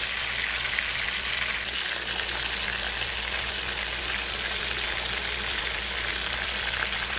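Seasoned chicken pieces frying in grapeseed oil in a pan, browning: a steady sizzle with fine crackling.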